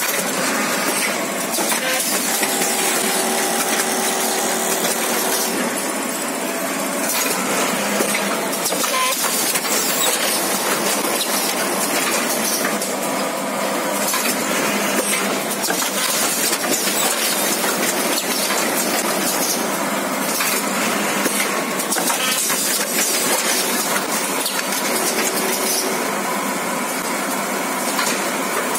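CBM 900 filling bag making machine running: a steady, dense clatter of rapid clicks mixed with hiss.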